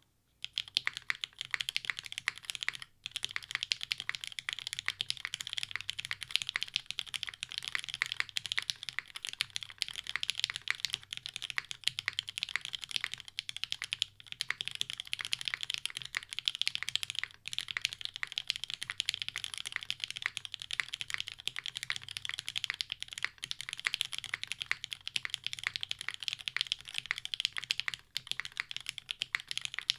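Fast, continuous typing on a Kohaku custom mechanical keyboard with lubed JWK Lavender linear switches, an undampened FR4 plate and GMK Dracula keycaps. The keystrokes form a dense, rapid clatter that starts about half a second in, with a few brief pauses.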